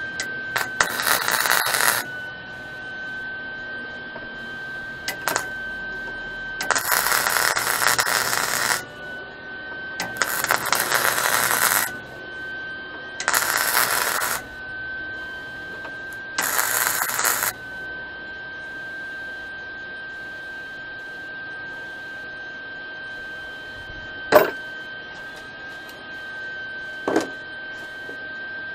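MIG welder crackling in five bursts of one to two seconds each as steel chain links are welded, with a steady high whine underneath. Two sharp knocks near the end.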